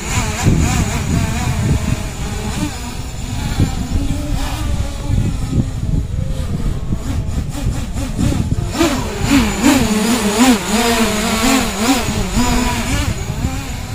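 A 7-inch FPV quadcopter's motors and propellers whine, the pitch rising and falling with the throttle as it is flown in acro mode. A loud low rumble runs underneath. In the second half the whine grows stronger and wavers around one pitch as the drone comes down low over the ground.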